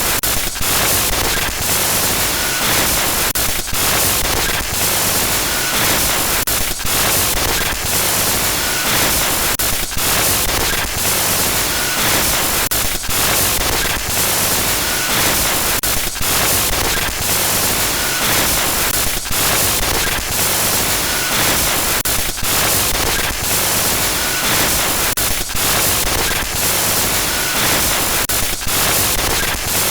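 Glitch noise sound effect: loud, continuous harsh static across the whole range, stuttering with frequent brief dropouts.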